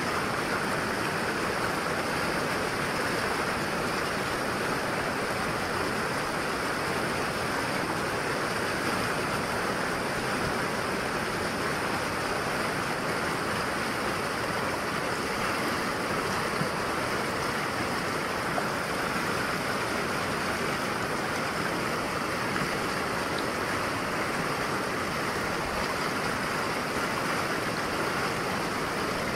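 Fast, shallow mountain river rushing over rocks and boulders, a steady, even wash of water noise.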